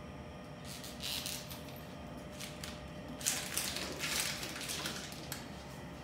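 Wall suction tubing being handled and tested: several short bursts of hissing, rustling air and plastic noise, about a second in and again around three to four and a half seconds in, over a faint steady tone.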